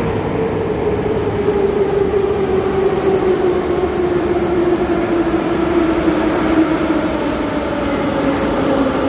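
Moscow metro train rumbling, its motor whine falling slowly and steadily in pitch as the train slows.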